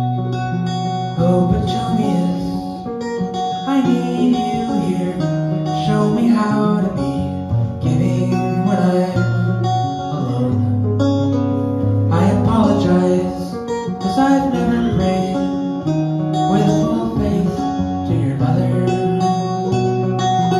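Acoustic guitar strummed steadily while a violin plays held melody notes over it, an instrumental passage of a live guitar-and-fiddle duo.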